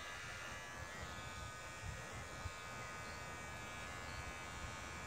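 Small handheld electric hair clippers buzzing steadily while shaving a man's head down to stubble.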